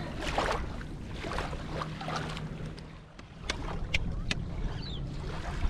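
Wind buffeting the microphone, a steady low rumble, with a few sharp clicks a little past halfway.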